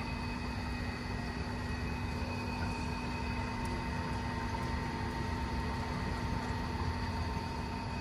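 Steady city street ambience: an even low rumble with a constant mechanical hum held at several steady pitches, getting slightly louder toward the end.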